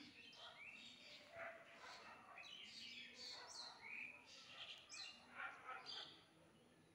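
Faint bird chirping: many short, high chirps and quick twittering calls, scattered and overlapping.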